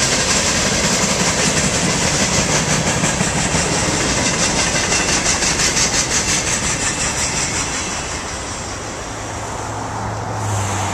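Freight cars rolling past, their steel wheels clacking rhythmically over the rail joints, with the clacking fading as the end of the train goes by. A steady low hum swells near the end.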